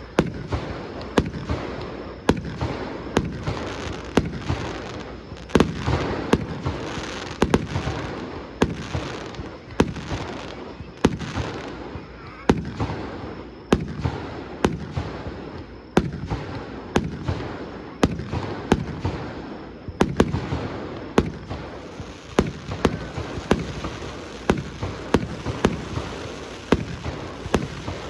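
Aerial fireworks shells bursting in quick succession: sharp bangs about one to two a second, each trailing off in a rumbling echo.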